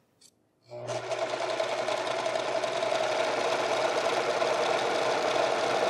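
Domestic electric sewing machine stitching a fabric collar. It starts up under a second in, runs at a steady speed, and stops near the end.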